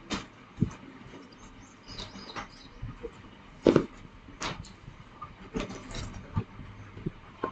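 Handling noises: scattered light knocks and rubbing as hands press and roll a lump of modelling clay on a wooden board, with two louder knocks a little past the middle.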